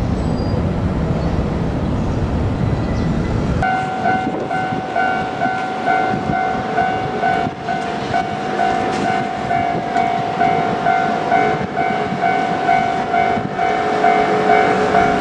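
Low rumble of a KiHa 200 diesel railcar at the crossing, which stops abruptly about four seconds in. A level crossing's warning bell then rings in quick, evenly repeated tones.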